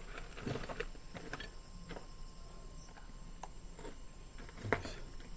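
Footsteps rustling and crunching through dry undergrowth: a few irregular steps, the sharpest one shortly before the end, over a faint steady high tone.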